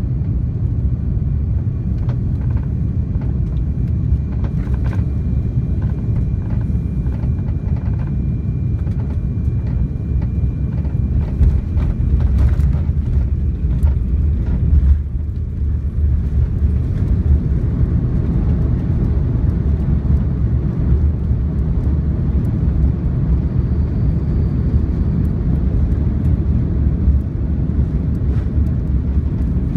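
Cabin noise of an Airbus A340-600 landing, heard from a seat over the wing. A steady deep rumble of engines and airflow on short final carries scattered light rattles. About halfway through the plane touches down, and a heavier, even rumble follows as it rolls out on the runway with its ground spoilers raised.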